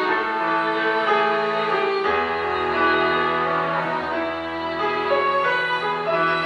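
Slow instrumental music with a violin-like string melody over sustained chords, played on a Nord Stage 2 keyboard. A low bass note comes in about two seconds in.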